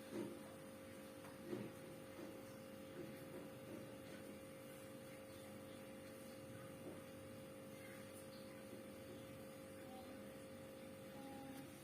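Steady electrical hum, a constant tone with weaker tones beneath it, from a Sharp two-door refrigerator running while it cools down. There are a couple of faint knocks near the start.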